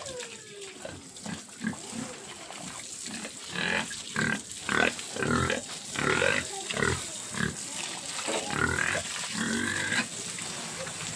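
Domestic pigs calling over and over in short, loud calls, most of them packed between about three and ten seconds in.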